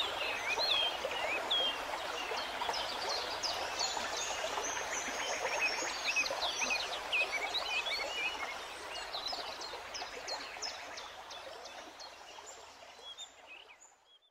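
Birdsong, many quick chirps, over a steady rush of running water, fading out over the last few seconds.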